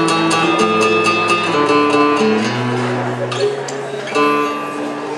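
Solo acoustic guitar: a chord plucked over and over, about four times a second, then ringing chords over a bass line that steps down, with a new chord struck about four seconds in.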